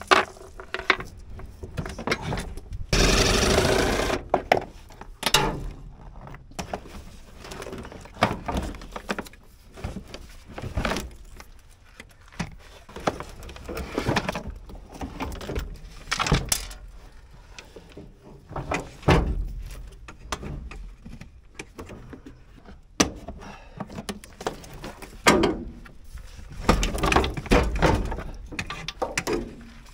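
Plastic heater and blower box being worked loose from a truck's firewall by hand: irregular knocks, clunks and rattles of plastic against sheet metal. One louder rush of scraping noise about three seconds in.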